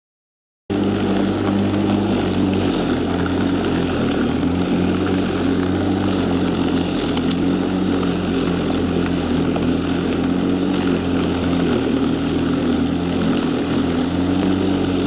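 A steady engine drone with a low hum and its overtones, starting abruptly about a second in.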